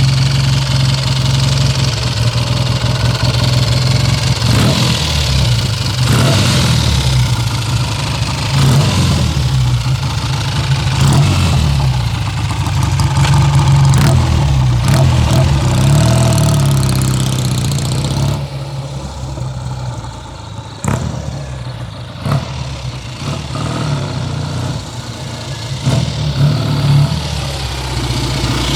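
1965 Triumph Trophy's 650 cc parallel-twin engine running and being revved several times. About two-thirds of the way through it drops back to a quieter idle, with a few short throttle blips.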